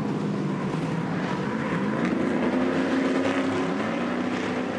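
Several Stadium Super Truck race engines running together in a tight pack, their overlapping pitches rising and falling as the drivers accelerate and lift through the corners.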